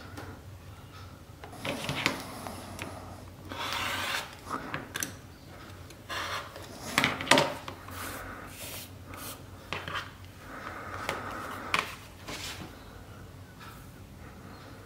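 Rotary cutter slicing the edges of a pieced quilt unit along a Tucker Trimmer ruler on a cutting mat, trimming it to size. The cuts come as several short strokes, the loudest about seven seconds in, with the ruler and fabric being slid and turned on the mat between them.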